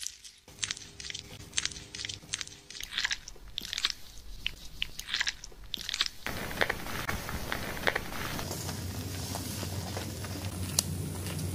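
Hands in clear plastic gloves rubbing and massaging wet skin and hair: irregular soft crackles, clicks and squishes. About six seconds in, a steady faint hiss comes in under the softer crackle of lathered hair being worked.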